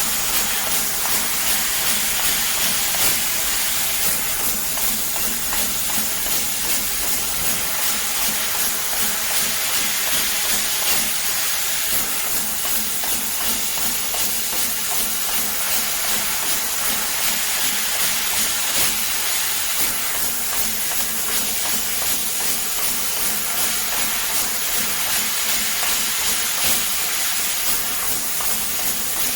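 12kW fiber laser cutting machine cutting sheet-metal discs: a steady high hiss of the assist-gas jet through the cutting nozzle, with faint ticks scattered through it.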